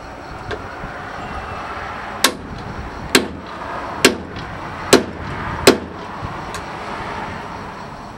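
Claw hammer striking a punch held against the sheet-metal door jamb of a 1953 Ford truck cab: five sharp metallic strikes a little under a second apart, marking the spot for a door-popper hole before drilling.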